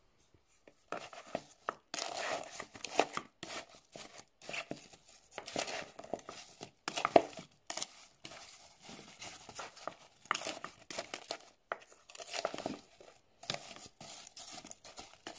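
A wooden spoon stirring and tossing sliced apples coated in sugar and cinnamon in a plastic bowl, with irregular scraping and rustling strokes. It starts about a second in, after a brief quiet.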